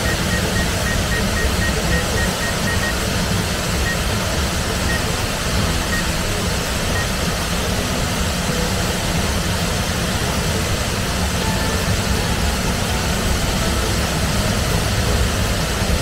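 Waterfall running with a steady, even rush of falling water.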